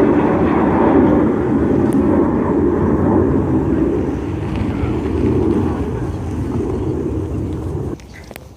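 Loud jet airliner engine noise, a dense low roar that slowly fades, then drops off abruptly about eight seconds in.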